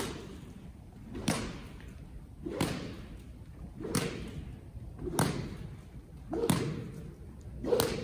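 Horse-training stick-and-string whip slapped down seven times in a steady rhythm, about one slap every second and a quarter, each a sharp crack with a dull thud under it. Rhythmic whip slapping of this kind is used to desensitise a horse to the whip.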